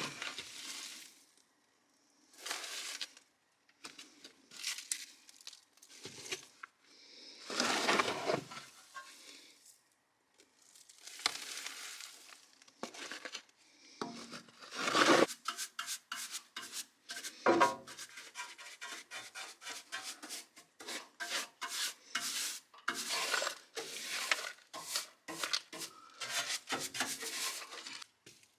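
Hand scrubbing or rubbing on a hard surface: scattered single strokes at first, then a quick, steady run of short back-and-forth strokes from about halfway through.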